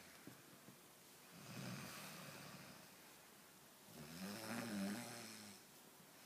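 A woman snoring in her sleep: two slow snores a couple of seconds apart, the first breathy and the second louder with a wavering buzz.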